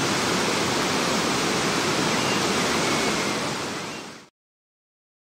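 Steady rush of whitewater in a river rapid, which fades slightly and then cuts off suddenly into silence about four seconds in.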